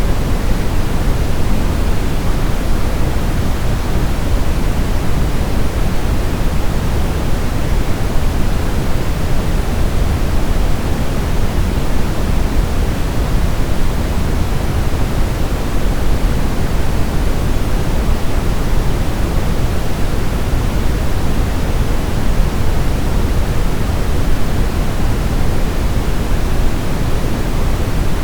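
Brown noise: a steady, deep rushing hiss, strongest in the low end and fading toward the top, unchanging throughout.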